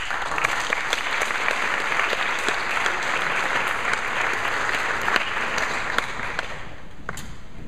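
Audience applauding, starting suddenly right as the choir's final chord dies away, then thinning out to a few scattered claps near the end.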